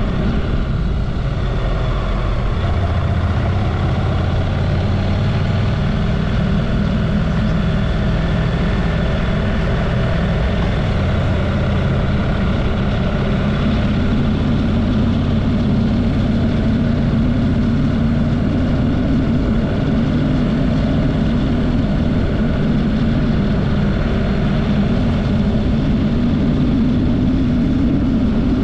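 Honda motorcycle's parallel-twin engine running under way, with steady rushing noise from riding; the engine note holds steady, then rises a little through the second half.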